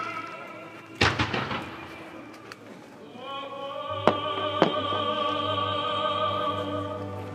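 Firework shells bursting over opera singing: a loud bang with a trailing echo about a second in, then two sharper bangs a little past halfway while a singer holds one long wavering note.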